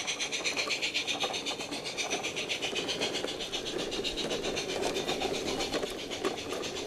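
A 45 mm gauge model train running along the garden railway track: a steady rolling and whirring of wheels and drive with a fast, even clicking.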